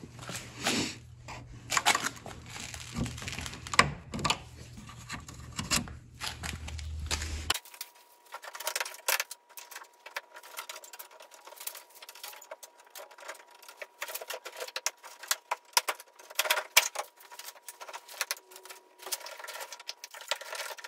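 Irregular plastic clicks, snaps and knocks of a Toyota Tundra's front grille and its retaining clips being worked loose by hand.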